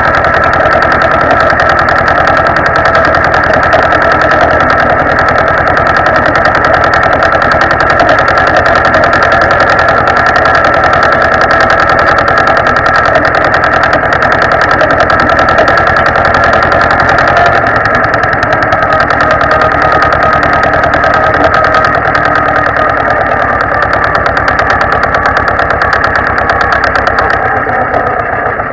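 Zetor 25 tractor's two-cylinder diesel engine running steadily as the tractor drives along, heard loud and close behind its upright exhaust stack. The engine eases off slightly near the end.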